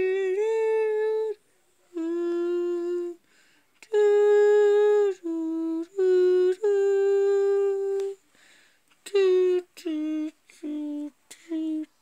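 A person humming a tune in a high voice: a row of held, steady notes about a second long each, then shorter notes near the end.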